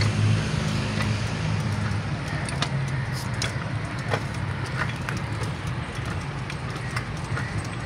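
A bicycle being ridden along a paved lane: a steady rumble of tyres and wind on the phone's microphone, with scattered light clicks and rattles.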